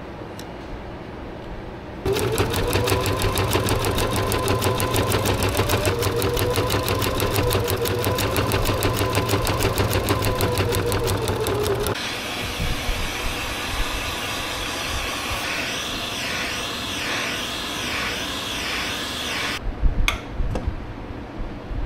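Heavy-duty sewing machine stitching a hat brim in a fast, even run of stitches for about ten seconds, then stopping. A different steady whir follows, then a few sharp clicks near the end.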